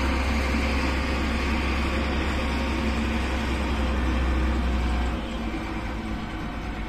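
A steady low machine hum, which drops off about five seconds in.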